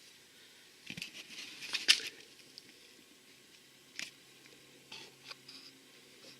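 A few scattered handling clicks and rustles, the loudest about two seconds in, over a quiet room background.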